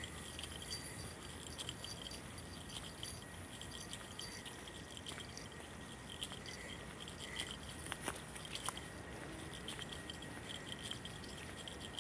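Faint outdoor ambience: scattered short, high chirps and light clicks over a steady hiss.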